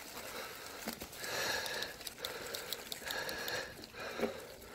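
A person breathing in slow, regular breaths, about one every second and a half.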